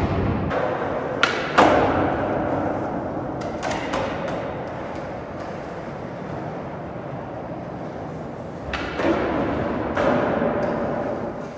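Skateboard wheels rolling on smooth concrete, a steady rumble that swells and fades, broken by several sharp clacks of the board hitting the ground.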